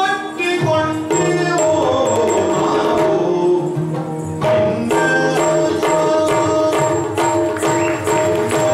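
Yakshagana himmela ensemble playing: the bhagavata sings over a steady drone, with maddale and chende drumming.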